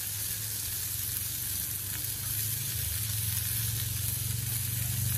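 Burger patties sizzling steadily on a hot Blackstone flat-top griddle, with a low drone growing louder from a little past halfway.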